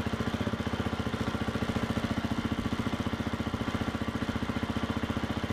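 2017 KTM 250 EXC-F's single-cylinder four-stroke engine idling steadily, with a quick, even pulse.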